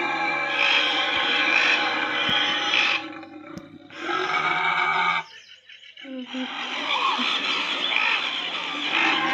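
Creature sound effects for a big white-headed bat: layered animal-like calls and roars, dropping out briefly about three seconds in and again about five seconds in.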